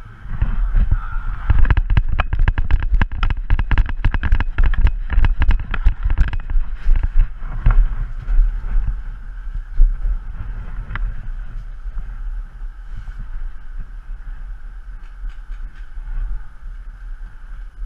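Paintball marker firing a rapid string of sharp pops, about five a second for some five seconds, then a few single shots, over heavy wind rumble on the microphone.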